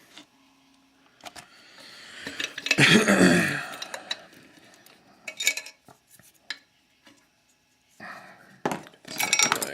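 Metal clinking and clicking of a dimple pick and tension bar against a Mul-T-Lock Classic oval lock cylinder. It is loudest in a cluster about three seconds in, with scattered clicks later on.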